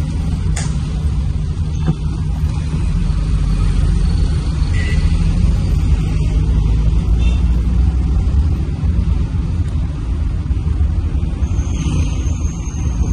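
Steady low rumble of a car's engine and tyre noise, heard from inside the cabin while driving in town.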